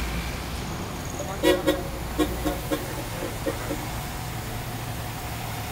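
A vehicle horn sounding a quick run of short beeps, about seven or eight in a little over two seconds, the first ones loudest, over a low steady rumble of engines.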